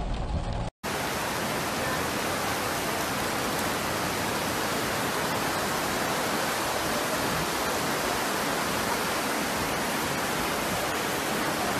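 Steady, even rushing of floodwater surging through a parking garage. The sound cuts out for a moment just under a second in, then runs on unchanged.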